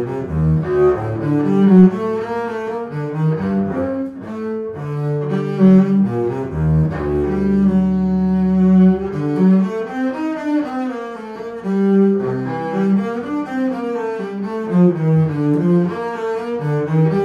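Solo double bass played with a bow: a running line of quick notes, broken by one longer held note about eight seconds in.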